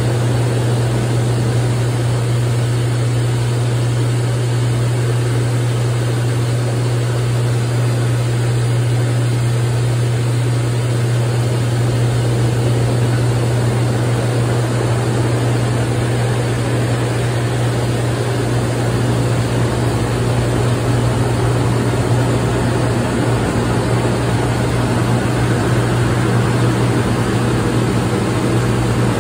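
Hydromassage bed running: its pump and water jets give a steady hum over a constant rushing hiss.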